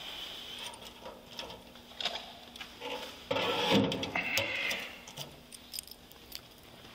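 Handling of a wall-mounted metal key lockbox: scattered metallic clicks and clatter, with a louder scrape of about a second and a half a little past three seconds in.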